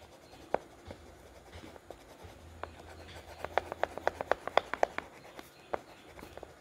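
Oil pastel being scribbled on paper: a few single scratchy strokes, then a quick run of short strokes, roughly eight a second, about halfway through.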